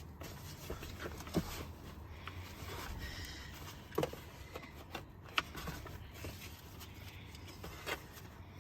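Faint handling sounds of an infant car seat base being worked on: scattered light rustling and a few sharp plastic clicks or knocks, about four in all, over a low steady hum.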